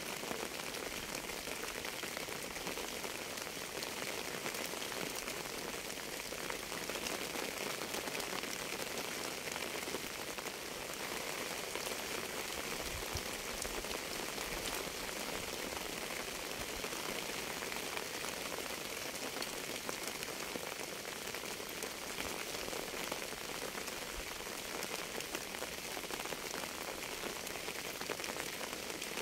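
Steady rain: an even hiss made up of countless small drop impacts, unchanging throughout.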